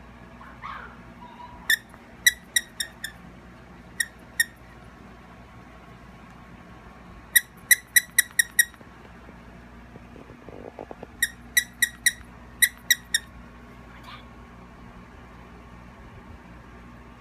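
Squeaker in a plush dog toy squeaking as a puppy bites and chews it: quick runs of two to six short squeaks, all at the same high pitch, repeated several times.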